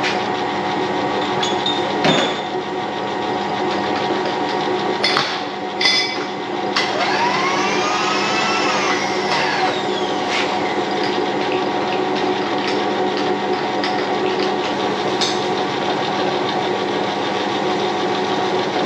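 A workshop machine motor running with a steady hum. A few light metallic clicks and clanks come about two, five and six seconds in, as a workpiece is set up in the mill vise. About seven seconds in a whine rises and then falls over a couple of seconds.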